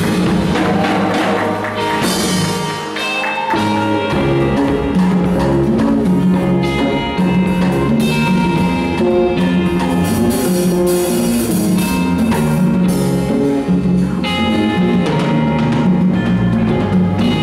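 Live church band playing gospel music: keyboard chords over a drum kit and guitar, with a steady beat.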